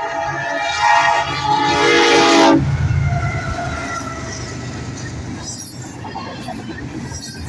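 Union Pacific diesel freight locomotive's air horn sounding a loud, steady blast that cuts off about two and a half seconds in. The locomotive's engine rumble and the wheels of double-stack container cars rolling past follow.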